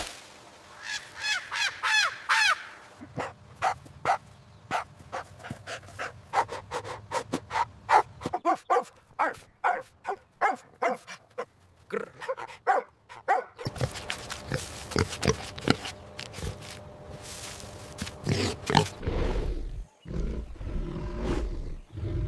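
Recorded animal calls in a series: a few high chirping calls at first, then a long run of quick short grunts, then rougher, lower calls near the end.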